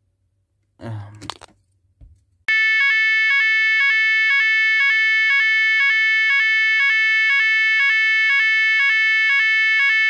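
Red electronic fire alarm sounder starts abruptly about two and a half seconds in and runs loudly and steadily, sounding an alarm tone that steps between two pitches about every two-thirds of a second. Before it starts there is a brief rustle and a knock.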